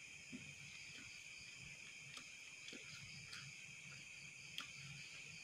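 Faint steady chirring of crickets, with a few soft clicks.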